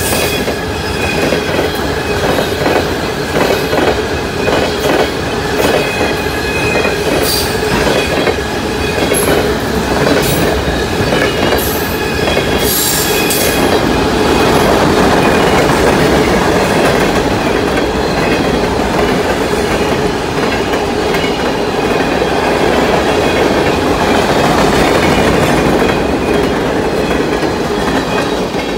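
Freight cars of a New York and Atlantic Railway train rolling past, wheels clicking rhythmically over rail joints with several brief high-pitched wheel squeals in the first half. About halfway through the sound turns into a steadier, louder rumble.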